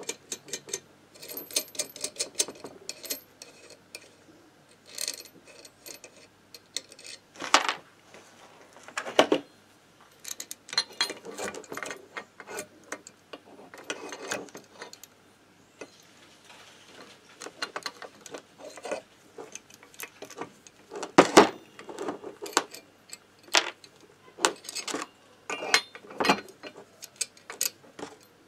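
Irregular metallic clicks and clinks of a bearing puller's arms, jaws and screw being handled and fitted onto a moped engine's crankcase, with a few louder knocks of metal on metal.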